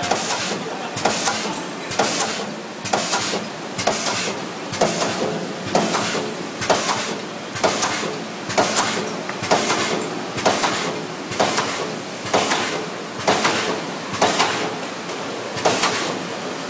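Factory machinery for making glass mosaic tiles, working in a regular cycle: a sharp mechanical stroke with a short hissing tail about once a second, over a steady machine noise. The strokes stop just before the end.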